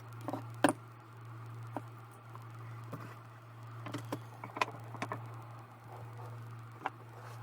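Scattered light clicks and taps of laptop plastic parts being handled and fitted back together during reassembly, over a steady low hum.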